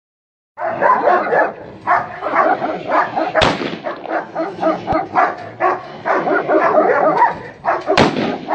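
German Shepherd barking rapidly and continuously on the leash at an approaching decoy during protection work. The barking starts abruptly, and a sharp crack cuts through it partway through and again near the end.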